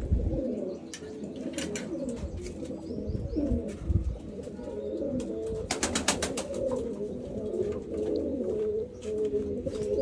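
Many domestic pigeons cooing at once, a steady overlapping chorus of low, wavering coos. Scattered sharp clicks, bunched about six seconds in.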